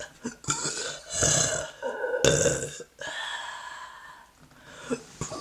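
A woman belching close to the microphone: loud belches about a second and two seconds in, then a longer, quieter drawn-out one.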